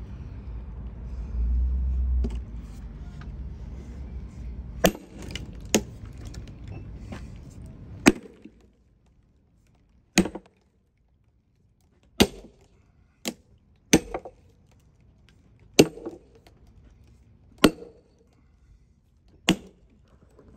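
A hammer striking a steel wedge driven into a hickory log, about ten sharp blows one to two seconds apart, riving the log along its grain. A low rumble in the background drops away about eight seconds in.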